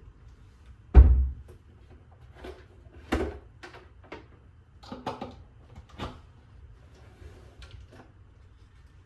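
Household handling sounds: a heavy thump about a second in, then a run of lighter knocks and clicks, like things being set down and cupboards or drawers moved.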